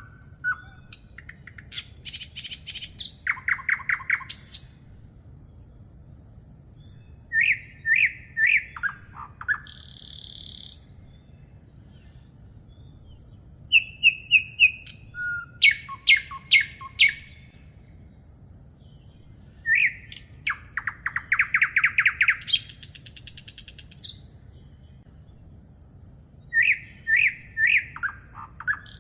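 Songbirds singing: several different bird songs of quick chirps, short trills and high whistled notes, in phrases that come every few seconds over a faint low steady background.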